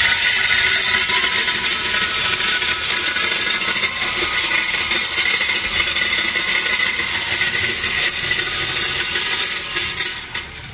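RYOBI Expand-It cultivator on a 40-volt battery string trimmer, its steel tines spinning as they dig into soil, with a steady motor whine and dirt and pebbles rattling against the tine guard. It winds down about ten seconds in.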